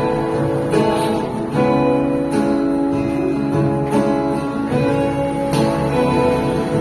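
Acoustic guitar strumming chords, the chord changing about every second, with no voice over it.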